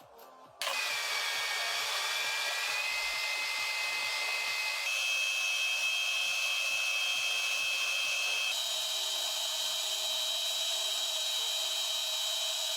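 Electric motor starting about half a second in and running with a steady whine that steps up in pitch twice, near five and eight and a half seconds in, as the running speed goes up.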